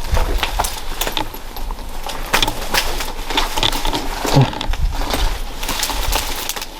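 Footsteps and crunching as someone picks their way over scattered debris and undergrowth, an irregular run of sharp cracks and rustles with a low rumble of handling or wind beneath.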